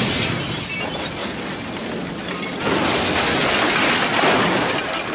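Fulminated mercury explosion blowing out windows: glass shattering and debris crashing and raining down, with a second surge of crashing about two and a half seconds in.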